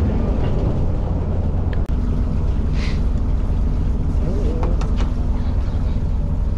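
Fishing boat's engine running steadily, a loud low hum, with a few light clicks over it.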